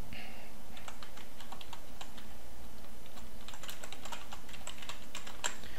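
Typing on a computer keyboard: a run of keystroke clicks, sparse at first and coming faster in the second half, over a steady low background hum.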